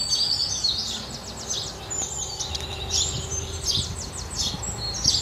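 House sparrows chirping: many quick, overlapping chirps follow one another without a break.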